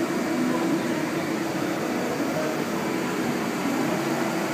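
Steady hum and hiss of running machinery, even and unchanging.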